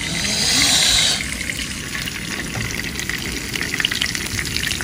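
Hot oil sizzling steadily in a frying pan after the fish is taken out, with a brighter hiss in the first second and small crackles throughout.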